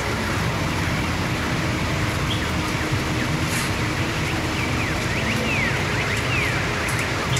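Steady rushing roar of a waterfall, with a few short, falling bird chirps about five to seven seconds in.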